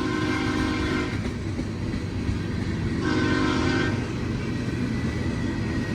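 Horn of an ex-Amtrak F40PH diesel locomotive leading a passing train: a blast that ends about a second in, then a short blast around three seconds in, over the steady rumble of the train.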